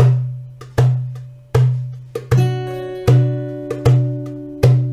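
Background music: a steady beat about every three-quarters of a second, each hit carrying a low note that fades, with higher tuned notes joining a little over two seconds in.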